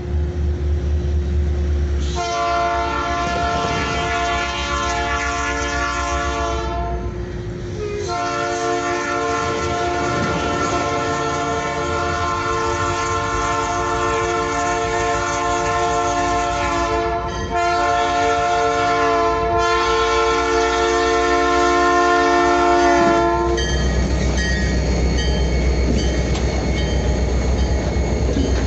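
Diesel locomotive multi-chime air horn sounding a chord in four blasts: long, long, short, long, the standard grade-crossing signal. The locomotive's diesel engine rumbles under it and is loudest before and after the horn.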